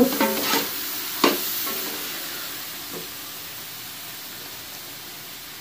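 Carrot halwa sizzling in ghee in a steel pot at its final roasting stage, the water cooked off and the ghee separating. One knock of the wooden spatula about a second in, then the sizzle fades slowly.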